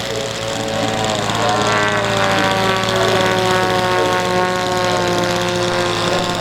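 Radio-controlled model aircraft engine flying past, its propeller note slowly dropping in pitch, over a steady low hum.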